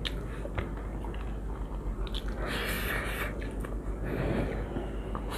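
People chewing mouthfuls of kacchi biryani, with small wet clicks and smacks. Two short hissy bursts come through, one about halfway and one at the end.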